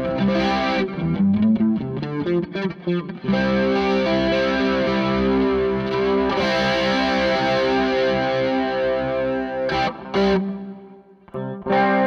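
Electric guitar played through a Boss DS-1 distortion and a Twinote BBD analog chorus, giving distorted chords with a shimmering chorus. A run of quick picked notes comes first, then a long held chord, a couple of short stabs, and a brief drop just before the playing resumes near the end.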